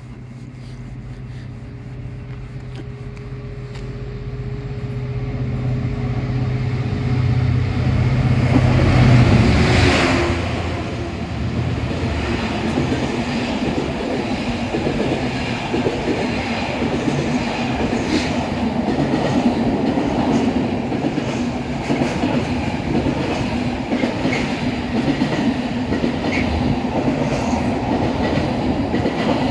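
Class 66 diesel-electric freight locomotive with its two-stroke V12 engine running, growing louder as it approaches and passing about nine to ten seconds in. Then comes the steady running noise of the wheels of its intermodal container wagons rolling past, with faint recurring clicks.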